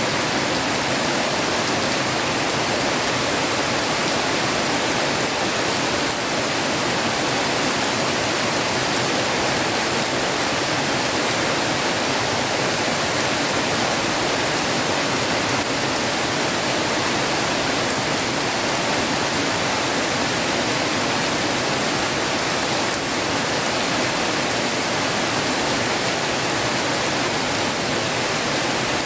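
Heavy rain falling, a steady even hiss with no thunder.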